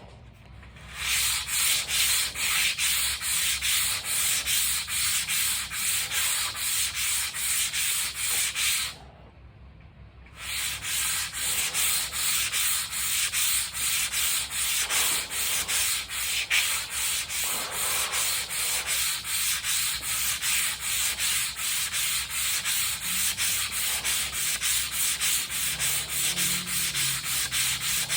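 Sandpaper rubbing back and forth on a car spoiler in quick, even strokes, about two to three a second. It starts about a second in, stops for a moment near the middle, then goes on steadily.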